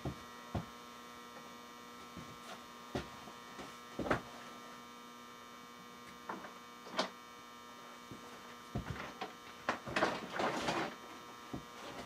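Steady electrical mains hum with a buzzy edge, with scattered knocks and clicks from things being handled out of frame, most of them in the second half.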